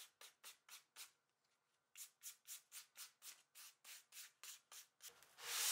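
Brass-bristle brush scrubbed across a hook-and-loop orbital sanding disc in quick strokes, about four a second, clearing sandpaper gummed up with Danish oil that had not fully dried. The strokes pause for about a second early on, then resume; near the end a louder steady noise starts.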